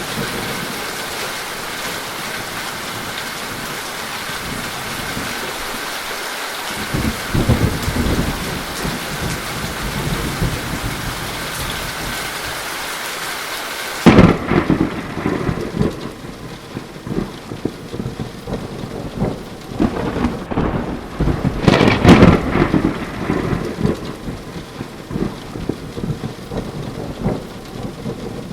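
Rain falling steadily with a low roll of thunder. About halfway through the sound switches suddenly to softer rain with loud rolling thunder, the loudest about three-quarters of the way through.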